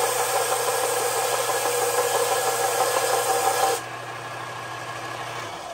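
Bench belt sander grinding a lip off an aluminium VW intake manifold: a steady abrasive rasp over the motor's hum. About four seconds in the part is lifted off and the sander runs on, much quieter, its hum dying away near the end.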